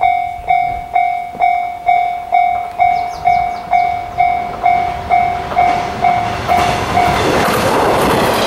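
Japanese level-crossing warning bell dinging at about two strikes a second. About seven seconds in, the dings are drowned out by the rising noise of a train running past.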